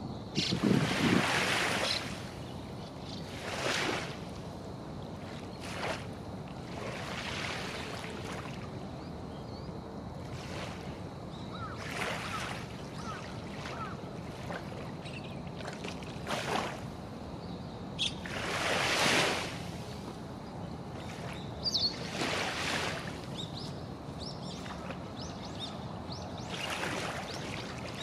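Small, calm waves lapping at the edge of a harbour inlet, with a soft splash every few seconds over a low, steady background rumble. One splash about two-thirds of the way through is louder than the rest.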